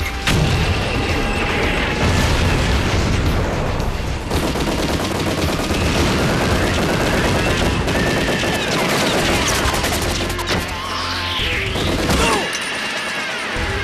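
Cartoon battle sound effects: rapid volleys of gunfire and explosions over dramatic background music.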